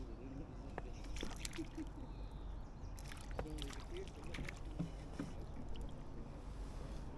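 Light splashing and dripping of pond water as a hooked rudd is brought to the bank, with scattered small clicks and knocks.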